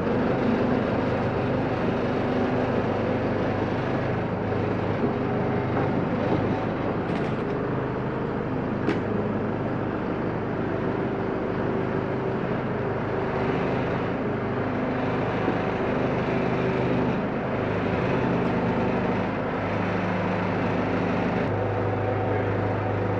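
Diesel engine of a Manitou telehandler running under hydraulic load as it lifts and places a concrete panel, its engine note stepping up and down several times. A few light knocks are heard over it.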